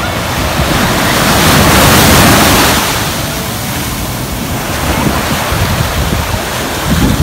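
Sea waves breaking and washing up over the sand at the shoreline, with wind noise on the microphone. A wave surges loudest about two seconds in, and another builds near the end.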